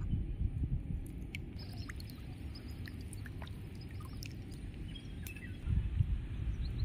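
Wind rumbling on the microphone in gusts, swelling near the end, with faint short bird chirps scattered through.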